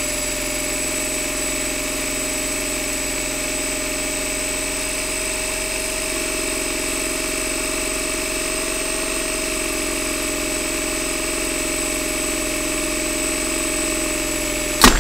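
Hand-held electric drill running at a steady, constant speed while drilling out the core of a broken spark plug seized in a Mazda MX-5 cylinder head. Near the end it stops with a sharp click and winds down.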